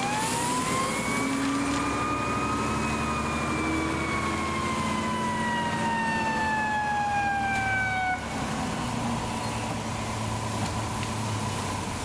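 Fire apparatus siren wailing through one slow cycle, rising in pitch and then gliding down over several seconds, cutting off suddenly about eight seconds in. A steady low engine rumble runs underneath.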